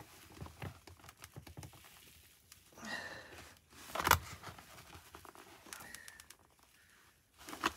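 Rustling and handling of a motorcycle helmet's cheek pad and liner as it is worked free, with one sharp click about four seconds in.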